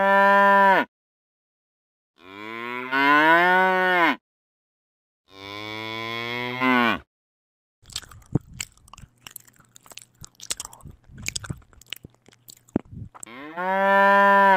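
Cow mooing: three long moos, then about five seconds of crunchy chewing as the cow grazes, then a fourth moo near the end.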